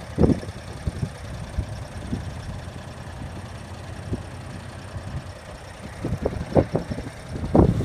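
Mini excavator's diesel engine running steadily, with irregular short thumps that come more often in the last two seconds.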